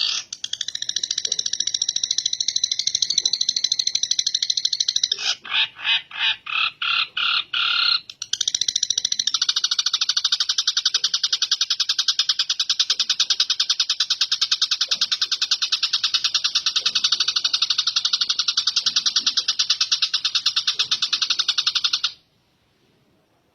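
Long-tailed shrike (cendet) singing a long, fast rattle of harsh repeated notes that mimic a kingfisher's (tengkek) call. About five seconds in it slows to separate notes, about three a second. After a few seconds the fast rattle resumes, then stops abruptly near the end.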